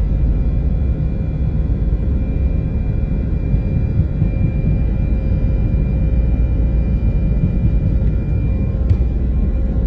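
Airbus A318 cabin noise during takeoff: the jet engines and airflow make a loud, steady rumble with faint steady whining tones above it. A brief tick sounds near the end.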